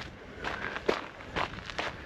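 Footsteps of a hiker walking on a dry sandy dirt trail, each step a short scuff, about two a second.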